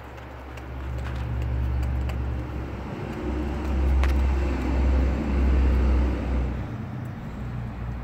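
A motor vehicle passing by: a low engine rumble swells over several seconds, is loudest a little past the middle, and fades away.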